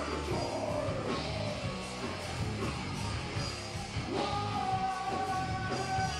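Live heavy metal band playing: electric guitars, bass and drums, with a male singer's voice holding long notes over them, strongest in the last couple of seconds.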